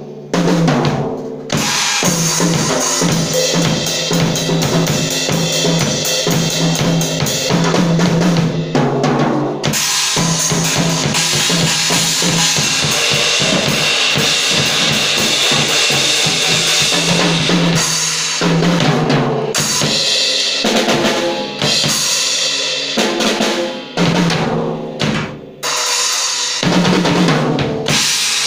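Acoustic drum kit played in a rock style: bass drum, snare, toms and crashing cymbals in a steady driving beat, broken by a few short pauses and fills.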